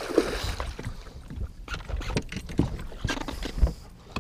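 A hooked musky splashing at the boatside, then a string of separate knocks and thuds in the boat as the net is brought up. The loudest thud comes about three and a half seconds in.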